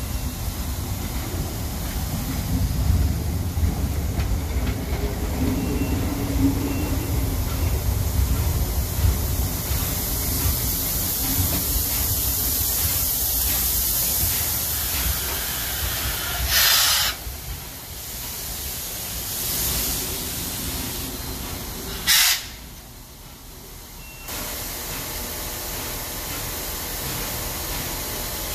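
Ol49 steam locomotive moving slowly past at close range while shunting: a low rumble with a steady hiss of steam. Twice in the second half comes a short, loud burst of hiss, and after each the sound drops quieter.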